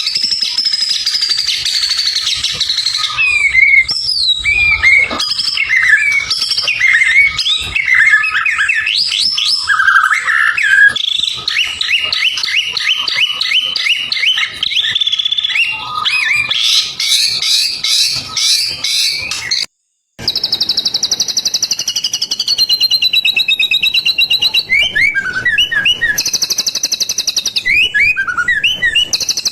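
White-rumped shama (murai batu) singing a long, varied song of whistled glides, trills and quick runs of repeated notes, broken by a brief silence about two-thirds of the way through.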